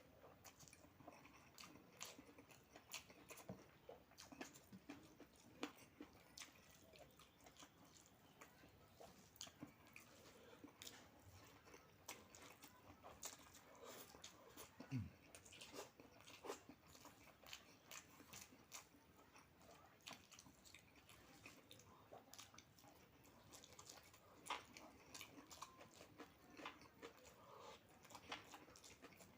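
Faint, close-up eating sounds: a person chewing and biting food, with many irregular small crunchy clicks.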